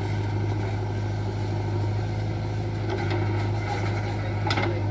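Diesel engine of heavy earthmoving machinery running steadily with a low, even hum, and a brief clatter about four and a half seconds in.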